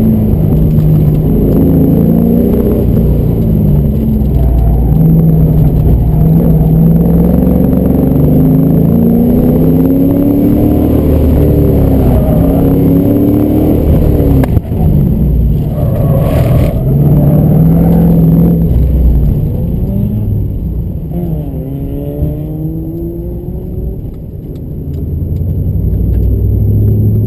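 1999 Pontiac Trans Am WS6's LS1 V8 heard from inside the cabin, its revs rising and falling again and again as the car is driven hard through an autocross course. The engine runs lower and quieter about twenty seconds in, then revs up again near the end.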